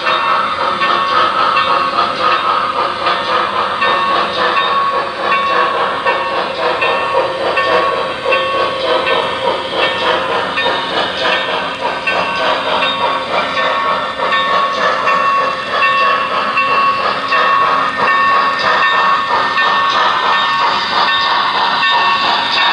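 Model train running close past on the layout track: wheels clicking rapidly over the rails, with a steady whine over it.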